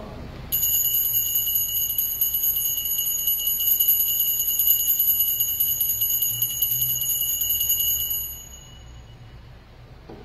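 Altar bells shaken rapidly in a continuous bright jingle during the elevation of the chalice at the consecration. The ringing starts about half a second in and stops about eight seconds in with a short fade.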